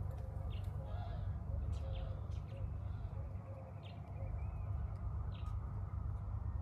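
Short, high bird chirps repeating every second or so over a steady low rumble.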